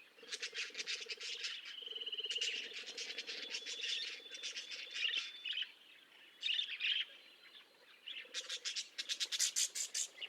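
Budgerigar chirping and warbling in quick runs of short high notes, with two brief pauses past the middle.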